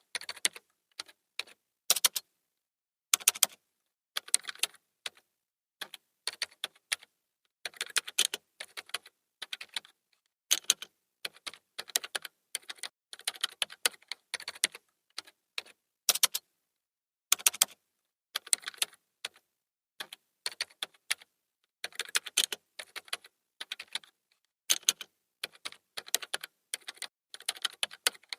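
Typing on a computer keyboard: irregular flurries of key clicks with short pauses between them.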